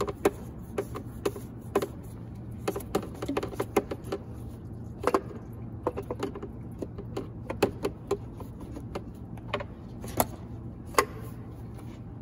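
Irregular clicks and light knocks of a hand working the plastic oil filter housing cap loose deep in a BMW M43 engine bay, with a steady low hum underneath.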